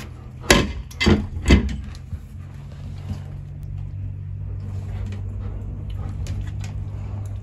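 Low, steady rumble of a thunderstorm heard from indoors, swelling from about halfway through. Three sharp knocks come in quick succession about a second in.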